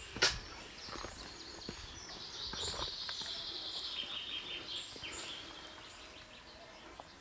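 Wild birds singing and chirping in a rapid, high-pitched run, loudest through the middle. A single sharp click comes just after the start.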